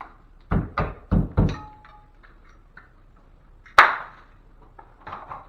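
Four dull thumps in quick succession, then a single sharp knock about four seconds in, the loudest of all, and a few lighter knocks near the end: hand tools and drywall pieces being handled and set down after hanging a ceiling patch.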